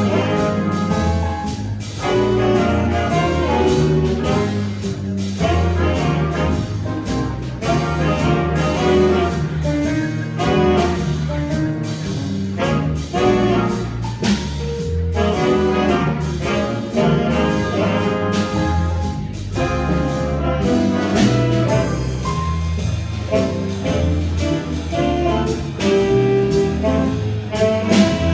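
A small brass group playing live, trumpets carrying the tune over a low bass part.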